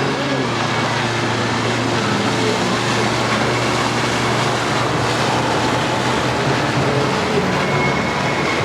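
Sea-Doo jet ski engine running steadily under way, its pitch drifting slightly, with a constant rush of noise.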